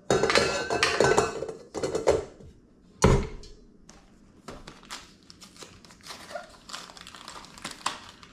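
Clattering at a stand mixer's stainless-steel bowl, then a single heavy thunk about three seconds in as the mixer's tilting head comes down onto the base. Lighter knocks and rustling on the countertop follow.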